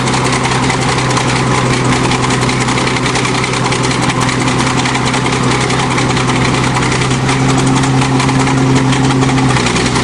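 Old crawler bulldozer's engine running steadily with a rapid, even exhaust beat, its pitch holding level as the machine crawls along on its tracks.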